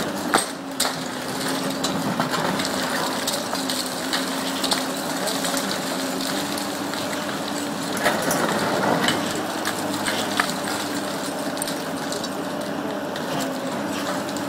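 Komatsu hydraulic excavator running under load, its engine and hydraulics droning steadily, while its demolition pincer crushes a concrete wall. Sharp cracks and knocks of breaking concrete and falling debris come over the drone, the loudest about half a second in and a cluster near the middle.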